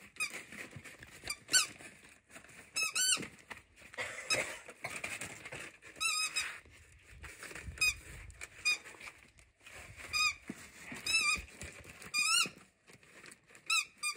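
Rubber chicken squeak toy squeaking about a dozen times, each a short squeak that rises and falls in pitch, as a husky bites it through its gift wrapping. Quieter crinkling of the wrapping paper in between.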